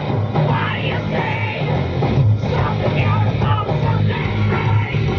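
Rock music with guitar, a heavy bass line and singing.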